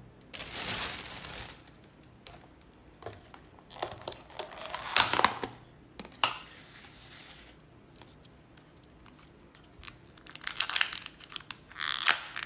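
Food packaging being unwrapped by hand: plastic crinkling and tearing in irregular bursts, with a few small knocks as containers are handled. The busiest stretches come about four to five seconds in and again near the end.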